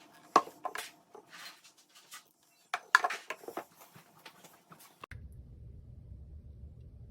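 Clinks, knocks and clatter of a glass mason jar and its lid or filter being handled, loudest about half a second in and again around three seconds in. About five seconds in the sound cuts abruptly to a steady low hum.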